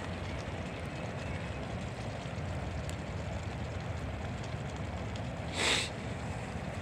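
Wood fire burning in a small folding woodstove, with a few faint crackles, under a steady low rumble of wind on the microphone. A short hiss comes near the end.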